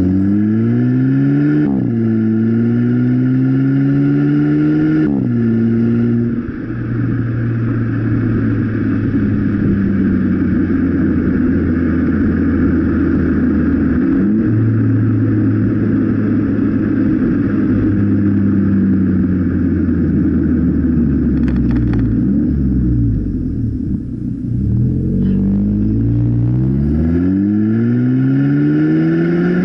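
Volkswagen Golf Mk7 1.4 TSI engine heard through its modified exhaust: rear muffler removed, with a GTI-style Y tailpipe of 3-inch tube, giving a deep tone. The revs climb over the first few seconds and drop back about five seconds in. They then hold steady for a long stretch, sag around twenty-odd seconds in, and climb again near the end.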